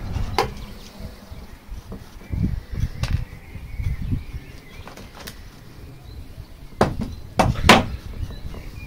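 Scattered clicks and small knocks of hands and a small tool working loose pumice grit around a juniper cutting in a small clay pot, with a few dull thumps; the sharpest clicks come near the end.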